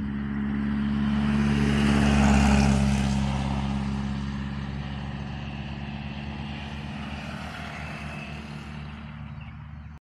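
A vehicle passes by. A steady low engine hum and a broad rushing noise swell to a peak about two to three seconds in, then slowly fade away.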